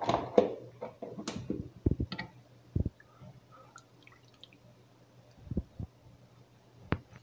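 Silicone spatula stirring margarine melting in water in a pot: the water sloshes, with a handful of short knocks and taps of the spatula against the pot.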